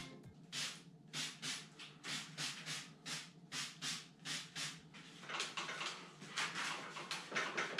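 Short rhythmic rubbing strokes on a bicycle frame's tubes, about two to three a second and quickening after about five seconds, as the frame is rubbed clean by hand with a pad and then a cloth.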